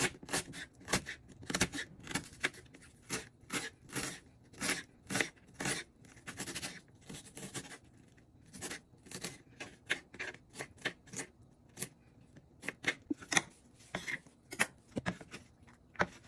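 Kitchen knife slicing and dicing a red onion on a wooden cutting board: a run of crisp cuts, each ending in a tap of the blade on the board, about three a second, with brief pauses.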